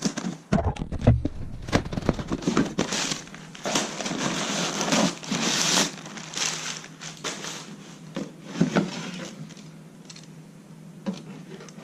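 A cardboard parts box being opened by hand: irregular rustling and crinkling of the box and its packing, with sharp knocks and clicks, busiest in the first six seconds and thinning out after.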